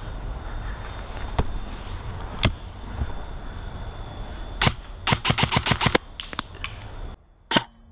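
Airsoft guns firing: a few single shots spaced a second or more apart, then a quick string of about eight shots in a second, then a few more scattered shots. A little after seven seconds in, the background hiss cuts out abruptly, and one more shot follows.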